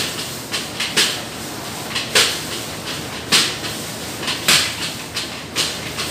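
Metal wok ladle knocking and scraping against a steel wok about once a second during stir-frying, over the steady rush of a high-flame gas wok burner.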